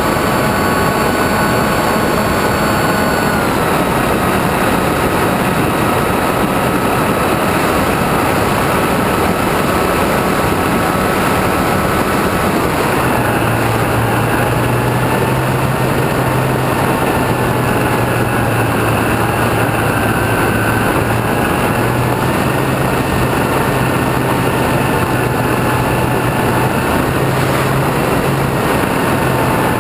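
Electric RC airplane in flight, recorded on board: a steady rush of wind and propeller noise with the motor's thin whine over it. The whine steps down in pitch about three seconds in and changes again about halfway through, wavering slightly after that.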